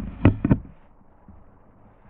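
Two sharp thuds in quick succession within the first second, then only a faint steady hiss.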